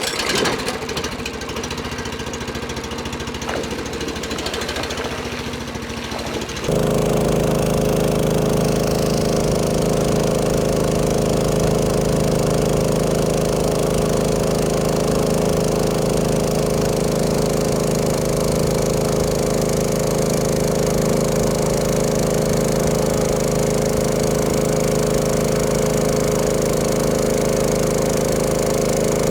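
A motor running steadily with an unchanging hum, coming in abruptly about seven seconds in after a quieter stretch of mixed noise.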